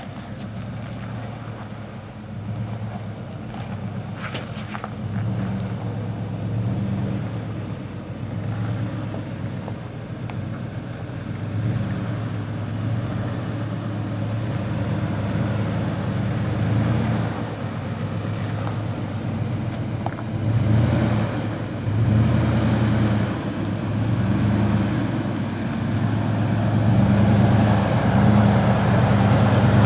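Nissan Titan pickup's 5.6-litre V8 engine working at crawling speed over rock ledges, its note rising and falling with the throttle and growing louder as the truck comes closer.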